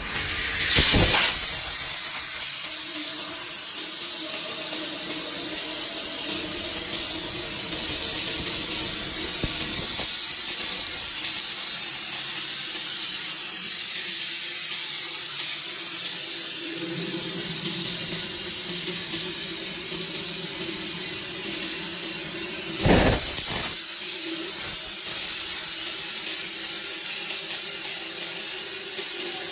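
CNC plasma cutting torch cutting thick steel plate: a steady loud hiss, with a short louder blast about a second in and another about three-quarters of the way through.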